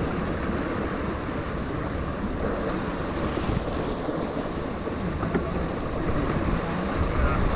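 Strong wind buffeting the microphone over the rush of water along a sailboat's hull, steady with no distinct events.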